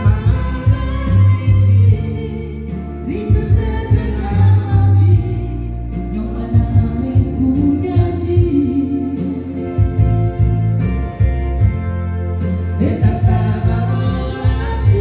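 Live duet: a man and a woman sing into microphones over an electronic keyboard playing chords, a bass line and a drum beat.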